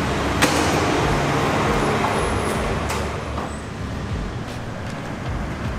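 Motor traffic noise: a steady engine rumble and hiss, with one sharp knock about half a second in.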